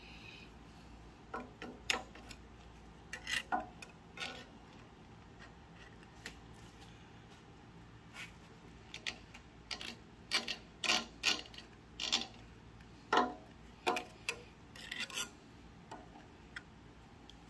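Putty knife scraping grease from a tub and smearing it around a shaft bearing while packing the bearing. The scrapes and clicks are short, scattered and faint, and come more often in the second half.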